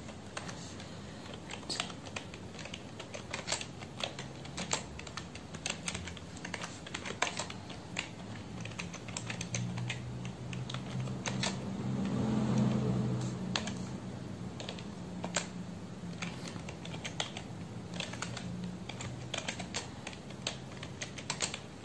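Computer keyboard keystrokes in an irregular run of clicks as someone types steadily during typing practice. A faint low hum swells up and fades away in the middle.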